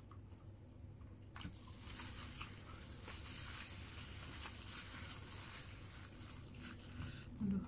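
Crinkly rustling of a plastic food-handling glove and a paper food wrapper as a hand squeezes and mixes rice with sambal, with soft squishing, starting about a second and a half in. Faint mouth clicks from chewing come before it.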